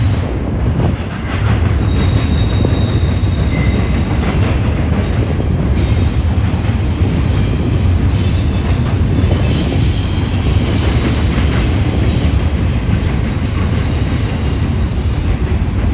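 Long double-stack intermodal freight train rolling past at close range: a loud, steady rumble of steel wheels on rail, with brief faint wheel squeals a few seconds in.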